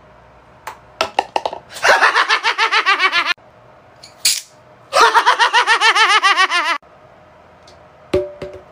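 High-pitched laughter twice, each about one and a half to two seconds of rapid, evenly spaced 'ha-ha' pulses. A few quick light knocks come just before the first laugh, and a single knock with a short ring comes near the end.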